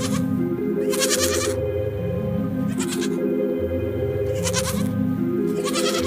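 Goat kids bleating four times, each a short wavering bleat, the longest about a second in, over steady background music.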